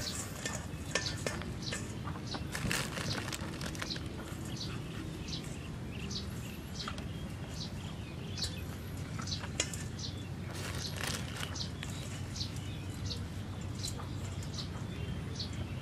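Coarse salt being rubbed by hand onto a whole skewered fish over a steel bowl: a light, scattered crackle and ticking of grains. Birds chirp in the background, with short repeated chirps about twice a second near the end.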